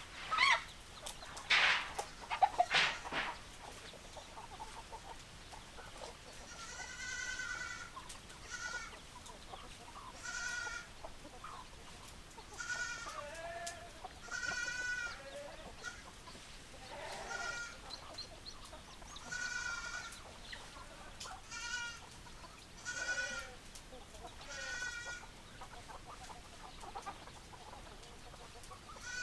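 Farm animal calling repeatedly: a few loud, sharp squawks in the first three seconds, then a run of high, wavering calls, each under a second, about every two seconds.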